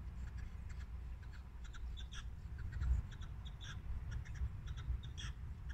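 Scattered short bird calls, irregular and overlapping, over a low steady rumble.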